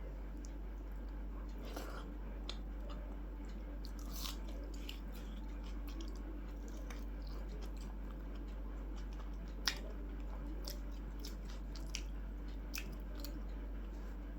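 A person chewing food close to the microphone, with scattered soft mouth clicks and smacks; the sharpest click comes about ten seconds in. A steady low hum runs underneath.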